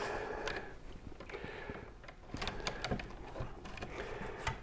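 A 1.5 mm² PVC single-insulated cable being fed through conduit into a switch box: faint rustling and scraping with scattered small clicks and knocks, more of them in the second half.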